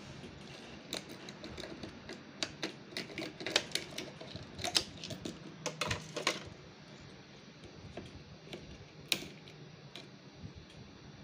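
Sharp plastic clicks and taps as the printhead carriage parts of a Brother MFC-J3530DW inkjet printer are handled during a printhead replacement, in an irregular cluster from about one to six and a half seconds in, then one louder click about nine seconds in.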